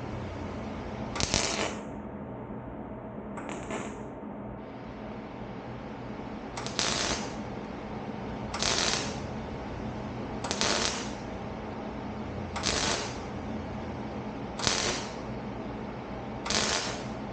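Welder laying a row of short stitch welds on steel: eight brief bursts of arc welding, the later ones about every two seconds, over a steady low hum.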